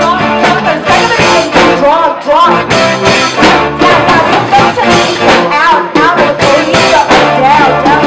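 Live pop-rock cover band playing: a female lead singer singing into a handheld microphone over electric guitar and drum kit, with a steady beat.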